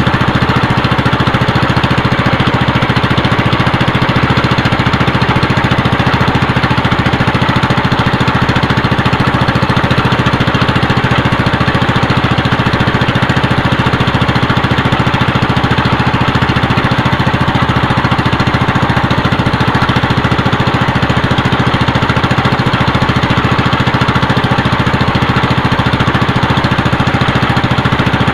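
Small engine of a motorized outrigger fishing boat running steadily at low speed while crab net is paid out over the side.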